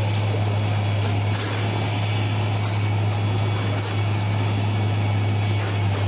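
Heavy railway track-laying machinery running, a steady low engine drone with a few faint clicks.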